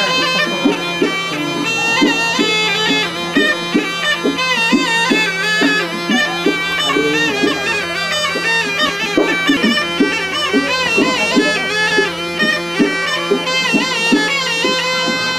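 Snake charmer's pungi, a gourd reed pipe, playing a wavering, ornamented melody over a steady drone.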